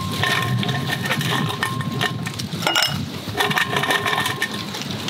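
Ice cubes clinking and crunching together as they are handled for a drink, with a couple of sharp clicks about two and three seconds in.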